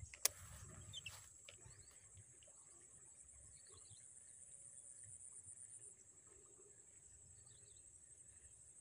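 Insects trilling steadily in a high, finely pulsing tone that weakens about six seconds in. A single sharp click about a quarter second in and a few faint ticks in the first second.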